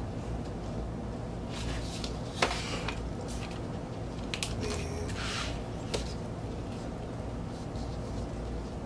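Card and paper record sleeves being handled on a desk: brief rustling and sliding as the printed inserts are moved and picked up. A sharp tap comes about two and a half seconds in, with a few lighter taps later.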